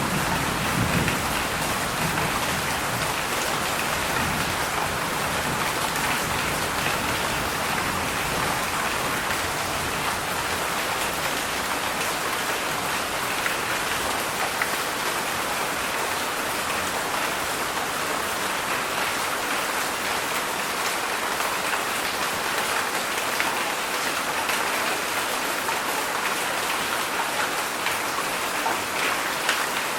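Heavy rain falling steadily: an even hiss of drops on surfaces, with a low rumble in the first few seconds.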